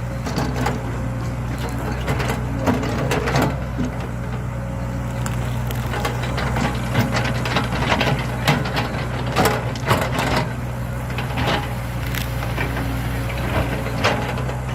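Hydraulic excavator's diesel engine running steadily under load, with repeated sharp cracking and crunching as the bucket breaks out a tree trunk and its roots from the soil.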